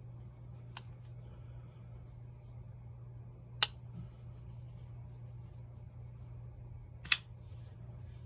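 Infinite Twin flipper folding knife being closed and flipped open: two sharp clicks about three and a half seconds apart, the blade snapping shut and then flicking out and locking, the second click the louder. A fainter click comes about a second in, over a low steady hum.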